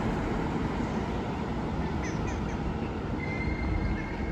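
Trilex regional train rumbling as it pulls out along the platform, with a thin steady wheel squeal setting in about three seconds in.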